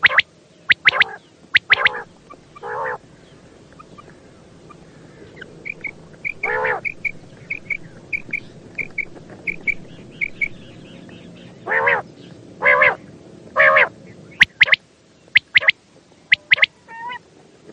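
Quail calling: sharp, clipped notes in quick twos and threes, several longer harmonic calls, and in the middle a run of soft repeated peeps about two a second.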